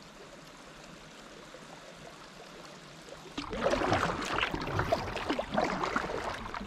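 River water around a kayak: a faint steady wash of water, then, about three and a half seconds in, louder irregular splashing and gurgling as the kayak moves on the current.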